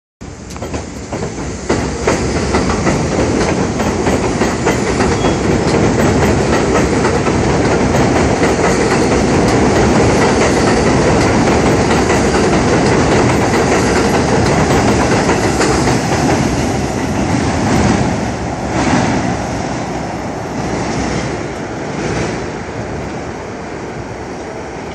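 R32 subway train pulling out of the station and passing on an elevated steel structure: a loud rumble with wheels clattering over rail joints, fading as the last cars pass near the end.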